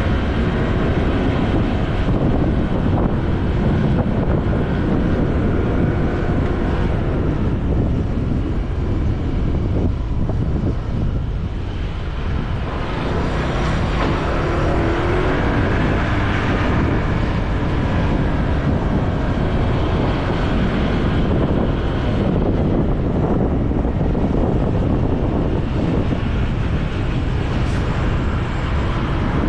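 Motorcycle engine running steadily at low town speed, with wind rushing over the microphone.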